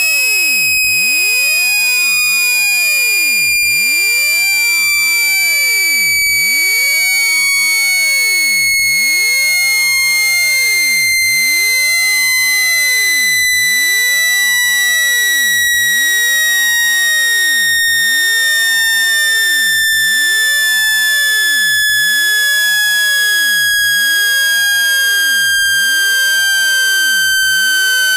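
Speaker water-eject tone: one loud synthesized tone with buzzy overtones, gliding slowly and steadily downward in pitch. The tone is meant to vibrate trapped water droplets out of a phone speaker.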